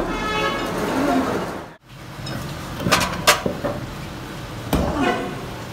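Workshop clatter of metal against metal: sharp clanks and knocks, two close together about three seconds in and another near five seconds, with faint voices in the background.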